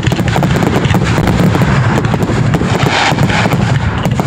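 Fireworks going off in a rapid, dense string of bangs and crackles.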